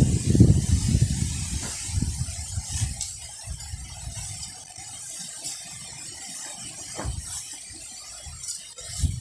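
Garden fork stirring compost into the top layer of soil: irregular scrapes and soft thuds of the tines in the earth, loudest in the first second or so, with a couple of sharper knocks later on.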